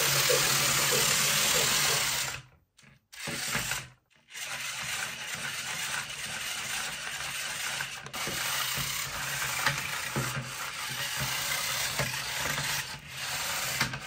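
Remote-control trackless toy train's small motor and gears whirring as it drives. It cuts out twice, briefly, between about two and a half and four seconds in, then runs on.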